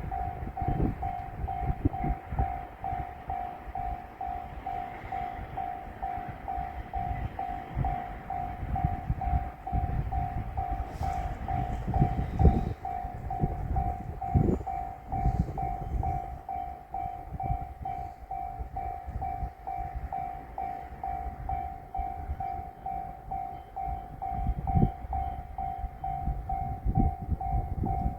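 Japanese level-crossing warning bell ringing its steady electronic "kan-kan", about two strikes a second, with a fainter higher-pitched ring joining about halfway through. An uneven low rumble from the train runs underneath.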